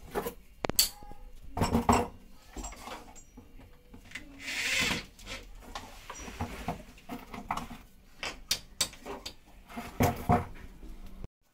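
Irregular knocks, clicks and clatter of metal rail fittings being handled and fixed to a tiled wall, with a short rushing noise about four seconds in.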